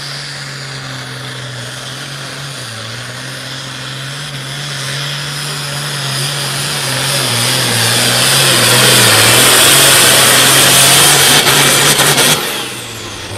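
Hot farm pulling tractor's diesel engine running hard at high revs during a pull, its steady pitch wavering a little as it grows louder over several seconds, then dropping off abruptly near the end.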